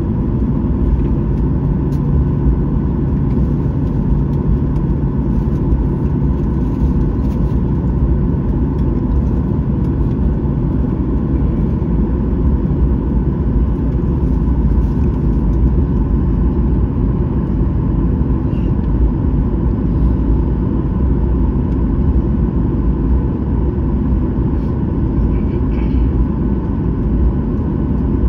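Cabin noise of a Boeing 737-800 taxiing with its CFM56-7B engines at idle: a steady low rumble, with a low hum over it for the first several seconds.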